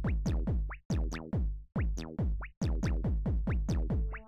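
Background electronic music with a quick drum-machine beat.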